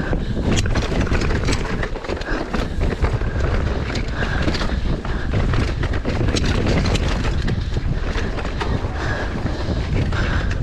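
Mountain bike being ridden on a dirt trail: wind buffeting the camera microphone over tyre noise and the rattle of the bike, with frequent small clicks and knocks.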